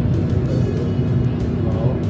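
Background music with a steady, dense low end; no gunshot.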